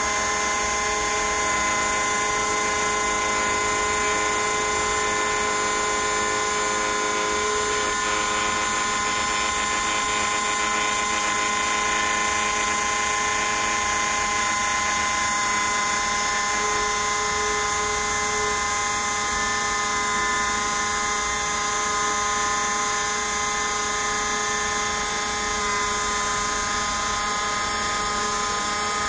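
CNC router spindle running with a steady high whine as its bit carves a relief into a block of white foam.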